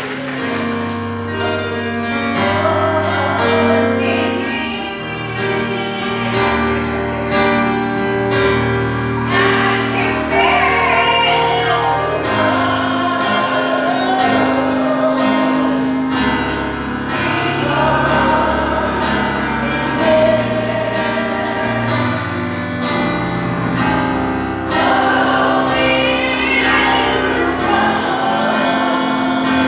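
Gospel choir singing with instrumental accompaniment, a steady bass line under the voices.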